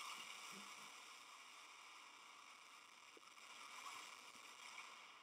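Near silence: only a faint, steady hiss.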